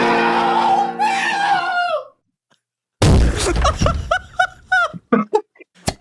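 AI-generated sound effect: a drawn-out scream lasting about two seconds. After a short silence comes a heavy crash, then a quick run of short bumps and yelps.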